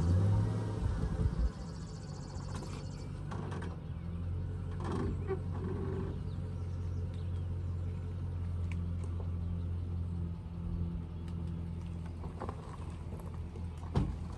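Pickup truck engine running at a low steady idle as the truck creeps forward, towing a utility trailer out from under an engine hung on a hoist. There is a sharp knock near the end.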